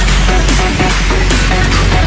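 Background electronic music with a fast, steady beat.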